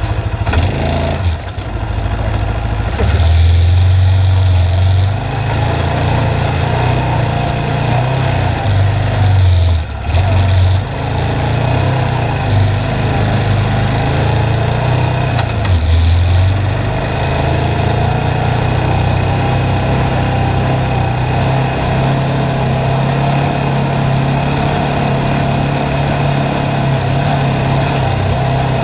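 ATV engine running under way on a dirt trail. Its note dips and picks up again several times with the throttle over the first sixteen seconds or so, then holds a steady, slightly higher note.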